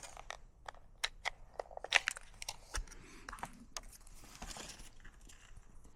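Faint handling of a freshly printed sticky label and the small label maker: scattered light clicks and papery crinkling as the label strip is torn off and handled.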